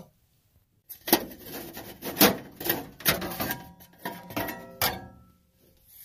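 Furnace sheet-metal panel and screws being handled: a run of sharp metallic clicks and knocks, some with a brief ringing, starting about a second in and stopping about five seconds in.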